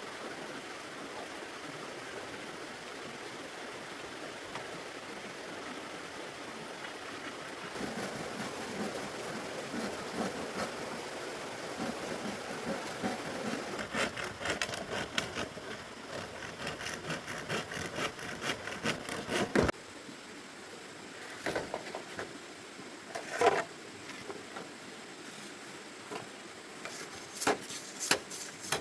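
Wood being worked by hand: steady rasping strokes that become a quick, even run of scraping or sawing, stopping abruptly, then several separate sharp knocks near the end.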